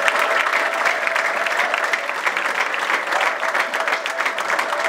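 A congregation clapping in sustained applause as praise to God.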